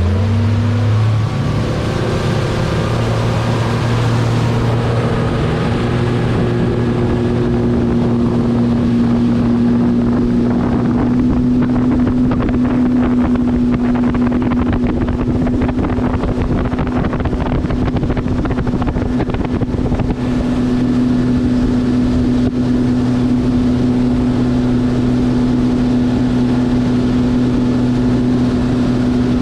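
Boat's outboard motor speeding up at the start, then running at a steady cruising speed, with wind and water rushing.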